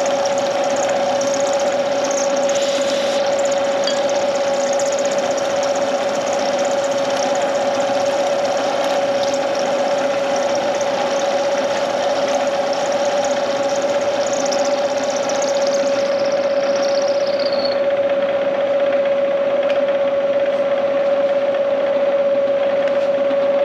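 Vertical milling machine cutting a 6 mm keyway into a shaft with an end mill. A steady spindle hum at one pitch sits under the hiss of the cut, and part of the higher cutting hiss drops away about three-quarters of the way through.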